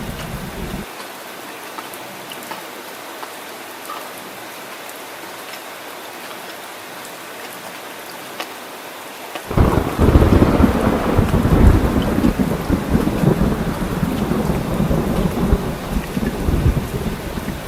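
Steady heavy rain. About halfway through, a deep thunder rumble comes in suddenly and keeps rolling under the rain.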